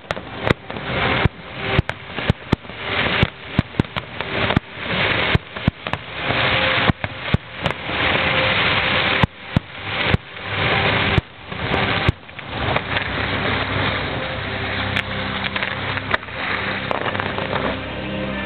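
Fireworks display: a quick succession of sharp bangs from bursting shells for about the first twelve seconds, then the bursts merge into a dense, continuous din.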